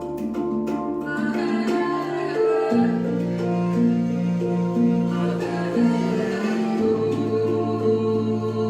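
Music: sustained instrumental chords that change twice, shifting about a third of the way in and again about three quarters of the way in.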